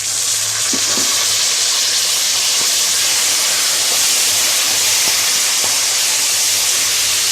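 Chopped roasted brinjal sizzling loudly in hot oil in a kadai as it goes in with the frying spices and coconut: a steady hiss that swells up at the start and then holds.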